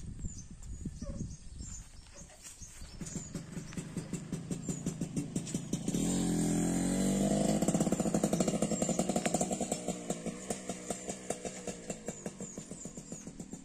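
A motor vehicle passing along the road: its engine grows louder, is loudest about six to nine seconds in with a bend in pitch as it goes by, then fades away.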